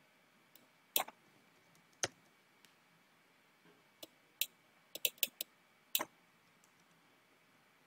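Computer mouse and keyboard clicks: scattered single sharp clicks, with a quick run of several around five seconds in.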